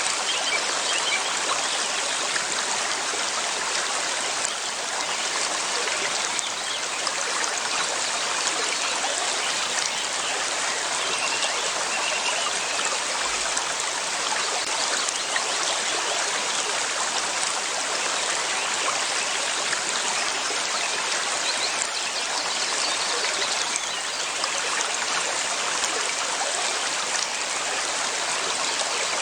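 River water flowing steadily, an even, continuous rush with no breaks.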